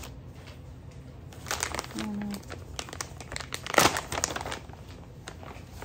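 Clear plastic zip-top bag crinkling as it is handled and pulled open, a run of crackles with the loudest one about two-thirds of the way through.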